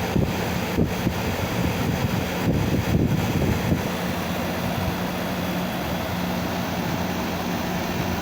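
Air conditioner with a newly replaced compressor running while it is charged with refrigerant: a steady hum of compressor and fan. A few dull bumps come in the first few seconds.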